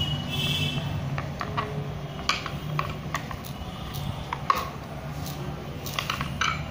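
Metal hinged poori press worked by hand over dough: the lid and handle clack and knock against the press plate in a handful of sharp clicks, one louder about halfway through, over a steady low hum.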